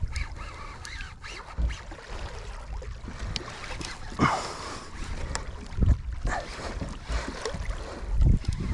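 Wind buffeting the microphone and water sloshing against a fishing kayak's hull, with scattered knocks and clicks.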